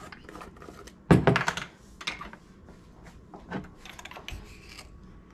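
A loud thunk about a second in, then scattered clicks and light knocks: a glass sugar dispenser and a measuring spoon being picked up and handled on a kitchen counter.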